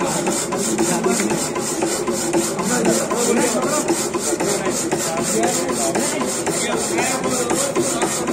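Power hacksaw cutting a flat metal work piece: a steady, evenly repeating rasp of the blade working through the steel.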